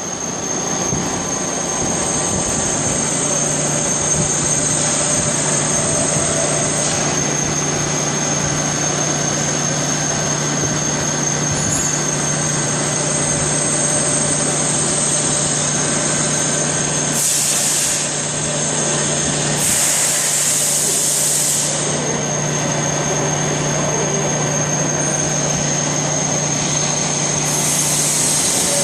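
Steady running noise of machine-shop machinery with a steady hum and a high whine, broken twice by short bursts of hissing about two-thirds of the way through.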